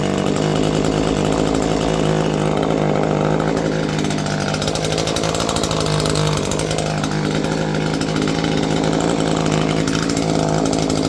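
Stihl MS 151 TC top-handle chainsaw's small two-stroke engine running steadily without revving.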